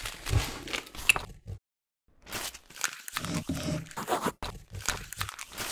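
Packing paper crinkling, crunching and tearing in quick irregular bursts, broken by about half a second of total silence partway through.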